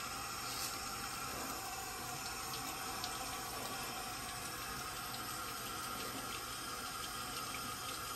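Steady hiss of a running bathroom tap, with a few faint short scrapes of a Double Duck straight razor shaving a lathered cheek.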